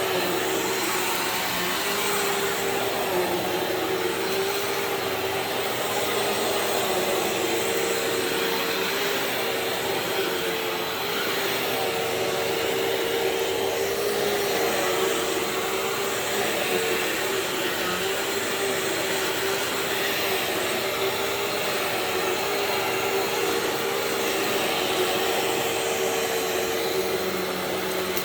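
Bissell CleanView Swivel Pet bagless upright vacuum running steadily: a continuous motor whine with a rush of air.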